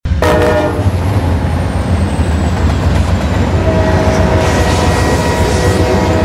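Train passing with a steady low rumble, its multi-chime air horn sounding briefly at the start and again in a long blast from a little past halfway.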